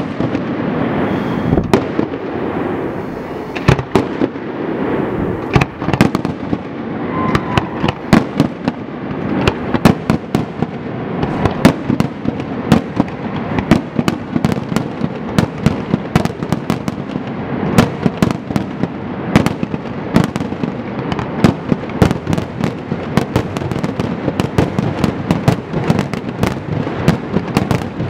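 Aerial fireworks display: shells bursting in a rapid, unbroken stream of sharp bangs over a steady wash of noise, the bangs coming thicker from about ten seconds in.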